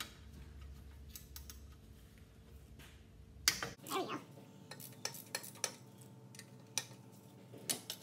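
Hand wrench clinking against the exhaust pipe bolts and metal of a 1992 Honda Accord's exhaust while loosening them: irregular metallic clicks and taps.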